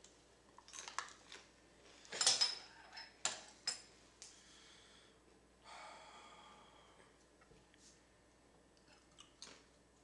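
Clinks and clatter of a metal spoon and dishes being handled at a kitchen counter, loudest a little over two seconds in, with a few sharper clicks after and more faint clicks near the end.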